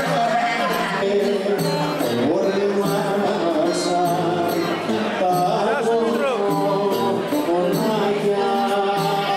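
Live Greek folk dance music on clarinet and violin, the melody bending and ornamented over a steady beat.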